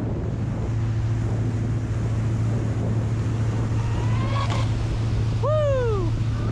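Inboard engine of a wake boat droning steadily under way, with wind on the microphone and water rushing past the hull. About five and a half seconds in, a short whine rises and then falls in pitch.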